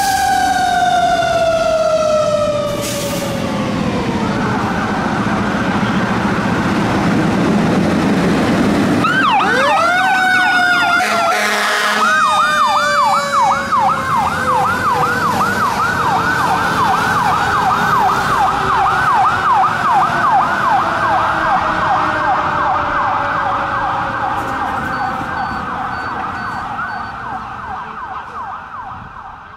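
Fire apparatus sirens: a Federal Q2B mechanical siren winds down in a long falling wail, under a truck's diesel rumble. About ten seconds in, a fresh siren starts up. A fast electronic yelp, about three cycles a second, repeats while a second mechanical wail slowly falls, with a short horn blast near twelve seconds, and the sirens fade away near the end.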